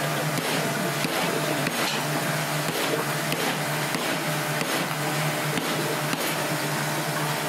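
Steady low hum and rushing noise of kitchen machinery, such as an exhaust hood fan or gas burners, with faint light knocks from a knife working through raw fish on a plastic cutting board.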